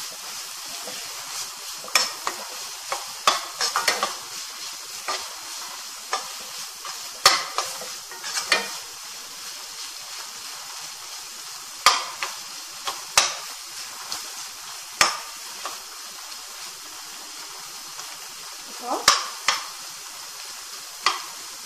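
Chopped tomatoes, green peas and herbs sizzling steadily in a non-stick kadai while being sautéed soft, with a steel slotted spatula stirring and sharply clicking against the pan every few seconds.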